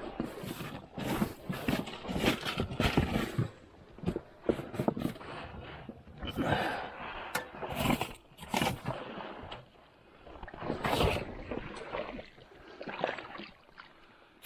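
Hunting gear being shifted around in a boat: irregular knocks, clunks and scrapes with rustling between them.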